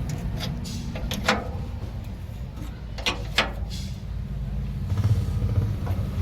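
An engine running steadily with a low rumble, a little louder about five seconds in, and several sharp clicks and knocks over it.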